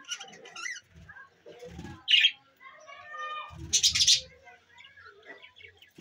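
A flock of budgerigars chattering: a busy mix of short warbling chirps and twitters, with two louder, harsh calls about two and four seconds in.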